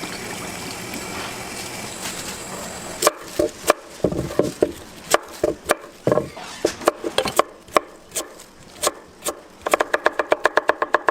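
Knife chopping on a cutting board: scattered single chops start about three seconds in, then a fast, even run of about nine chops a second near the end.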